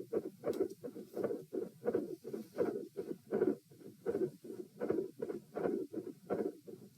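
Human heartbeat recorded at the chest: a regular train of short lub-dub thumps, about three to four a second, growing louder and softer in a repeating cycle, the pronounced respiratory phasic pattern the recorder found unusual.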